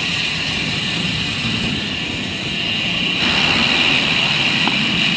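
Steady wind and road noise from a road bike riding along a highway. The noise shifts and gets a little louder about three seconds in.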